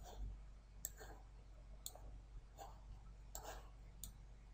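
Faint computer mouse clicks, four or five of them spaced roughly a second apart, over a low steady hum of room tone.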